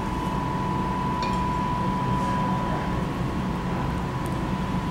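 A steady low hum with a constant high whine underneath, with a few faint light clinks of cutlery on a plate about a second in and near the end.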